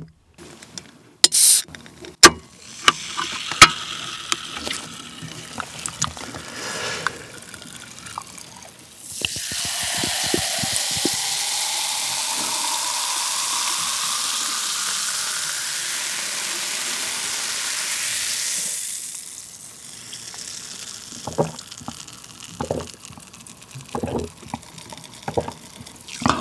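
A can of Coca-Cola is opened with a few sharp clicks, then poured into a glass. The pour is a steady fizzing hiss of about ten seconds, followed by scattered short sounds near the end.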